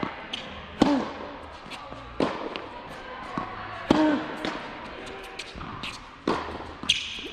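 Tennis rally on an indoor hard court: rackets striking the ball with sharp pops, the loudest about a second in and near four seconds from the near player's shots, softer ones from the far player's returns and ball bounces, echoing in the hall. A short grunt follows each of the two loudest hits.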